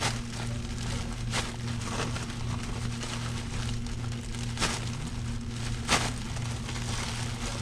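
Foil-jacketed insulated flex duct crinkling and crackling as it is cut and handled, with a handful of sharp crackles spread through, over a steady low hum.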